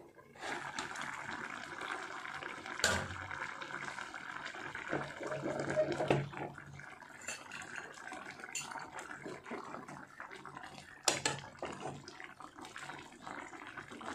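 Fish curry boiling in a pan, a steady bubbling hiss, with a sharp knock about three seconds in and another about eleven seconds in.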